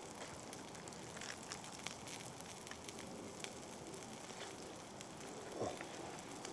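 Sausages, onions and tomatoes frying in a pan over a small wood fire: a faint, steady sizzle with scattered pops and crackles.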